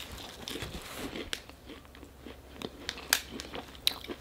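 Close-up biting and chewing of a crispy oven-toasted sausage-and-egg biscuit sandwich: irregular sharp crunches spread over several seconds.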